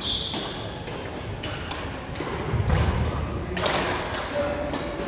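Badminton play on a wooden gym floor: a string of sharp racket-on-shuttlecock hits and footfall thumps, each ringing briefly in the hall, with a heavier thump about two and a half seconds in.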